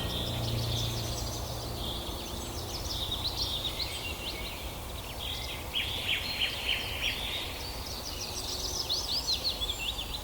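Many small birds chirping together: a dense chorus of short, quick, overlapping high chirps, busiest about halfway through and again near the end.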